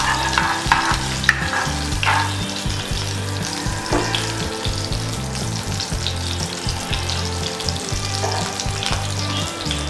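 Cumin seeds sizzling and crackling in hot oil in a nonstick kadhai, with a spatula scraping and stirring them at first. Background music with a steady bass line plays underneath.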